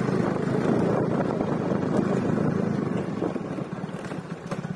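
Motorcycle engine running at low speed with a fluttering rumble, growing somewhat quieter from about three seconds in.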